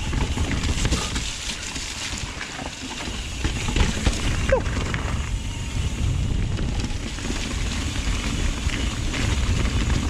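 Trek Remedy mountain bike riding down a wet trail, heard from the action camera: steady wind rumble on the microphone, with tyres clattering over wet rocks and roots and the bike rattling. A brief squeak comes about halfway through.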